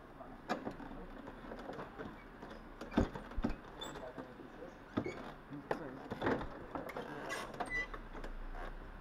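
Irregular knocks and rustling of hands on a go-kart's steering wheel and seat, the loudest about three seconds in, over the steady noise of an indoor karting hall.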